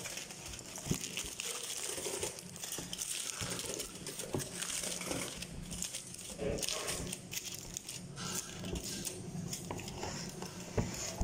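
Aluminium foil crinkling and crackling as it is pressed and crimped around the rim of a stainless steel pot.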